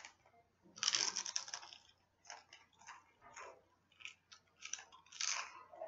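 Crunching and chewing a hand-cooked potato chip: irregular short crisp crackles, with a longer crackling burst about a second in and another near the end.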